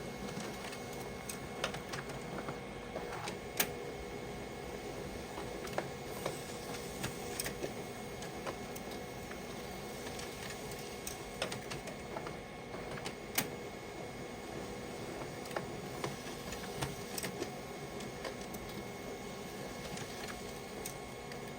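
HP Color LaserJet Pro MFP 4301fdw laser printer running a print job: a steady mechanical hum with scattered irregular clicks and ticks.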